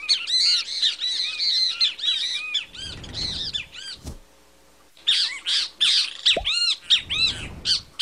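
Great kiskadee (bem-te-vi) calling in rapid runs of quick, arched, squawking notes. The calling breaks off for about a second midway, then starts up again.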